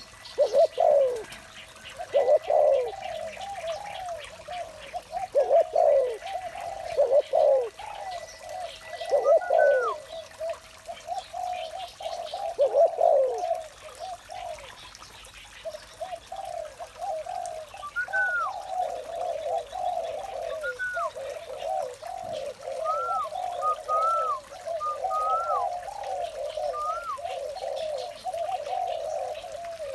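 Spotted doves cooing over and over in repeated phrases. The calls come in spaced groups at first and run almost without a break from about halfway on. Short higher call notes sound over the coos now and then.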